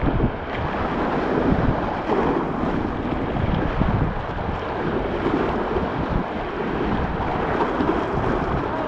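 Whitewater rapids rushing and churning around a kayak, with wind gusting on the microphone.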